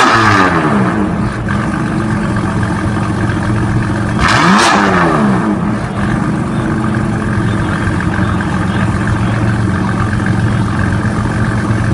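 Car engine idling steadily and blipped twice: a rev dying away at the start and a second quick rev, rising and falling, about four and a half seconds in.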